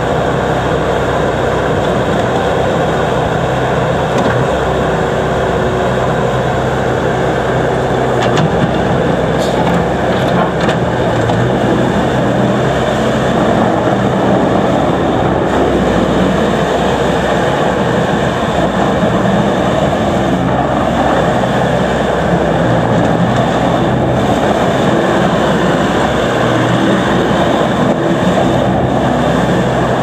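The 61 hp Doosan diesel engine of a Bobcat S570 skid steer loader running steadily while the loader works its bucket and drives across gravel.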